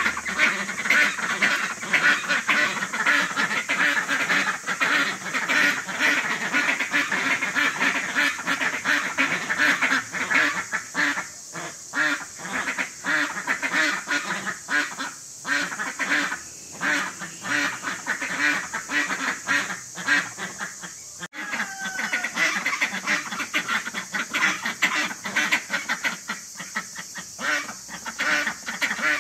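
Flock of domestic ducks (white Pekins and brown hens) quacking loudly and almost nonstop, the quacks packed tight for the first ten seconds and more broken up after. It is the clamour of hungry ducks begging for food on seeing their keeper.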